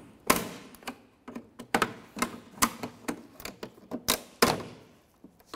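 Plastic push tabs of a Ford Explorer Sport Trac's wiper cowl grille snapping loose as the grille is pried up with plastic trim tools: a series of irregular sharp clicks and snaps, the loudest about a quarter second in, near two seconds, and two close together past four seconds.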